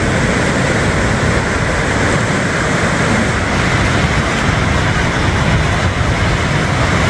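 Ocean surf at the shoreline: a steady roar of small waves breaking and washing up the sand.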